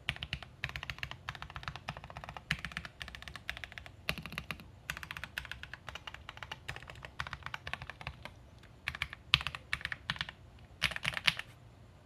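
Typing on a foam-modded Akko ACR67 mechanical keyboard with Gateron Oil King linear switches on a polycarbonate plate and silent PBT keycaps. The keystrokes are a fast, creamy, poppy patter in quick runs with short pauses, stopping near the end.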